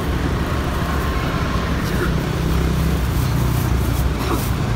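Steady road traffic with an engine hum running underneath. A plastic bag crinkles briefly in the second half.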